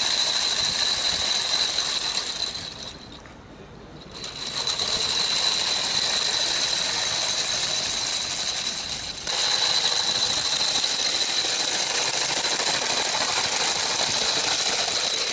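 Motorized skateboard with rotating mechanical metal feet in place of wheels, its electric drive and stepping mechanism running steadily with a high whine. It drops quieter for about a second about three seconds in, and gets louder again abruptly about nine seconds in.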